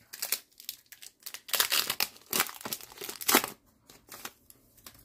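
A foil Pokémon booster pack wrapper being torn open and crinkled by hand: a run of sharp crackling tears for about three seconds, loudest in the middle, fading to a faint rustle near the end.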